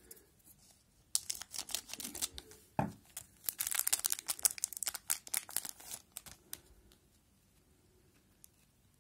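A 2019-20 O-Pee-Chee hockey card pack's wrapper being torn open and crinkled, with one sharp rip about three seconds in. The crackling runs from about one second in to about six seconds in.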